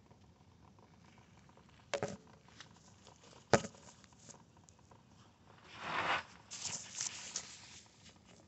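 A few sharp clicks and knocks, the loudest about three and a half seconds in, then a couple of seconds of rustling and clattering.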